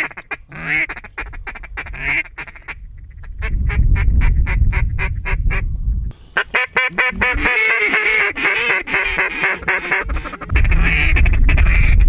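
Duck calls blown in rapid runs of quacks and fast feed chatter to work a flock of ducks circling overhead. Gusts of wind rumble on the microphone twice.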